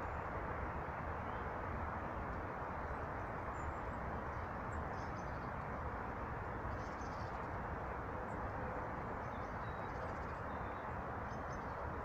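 Small songbirds chirping faintly, a handful of short high calls scattered over a steady rushing background noise.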